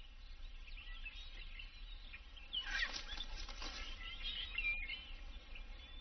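Forest ambience with small birds chirping, a flurry of short calls about halfway through.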